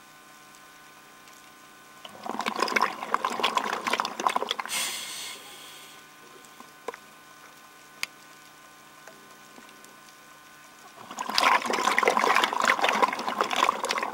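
Scuba diver's exhaled bubbles rushing and gurgling out of the regulator, twice: a burst of about three seconds starting about two seconds in, and another starting near the end, with a quiet stretch between them.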